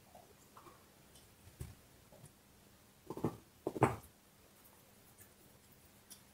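A dog gnawing on a large bone: scattered crunches and scrapes of teeth on bone, one about a second and a half in and a louder cluster of crunches around three to four seconds in.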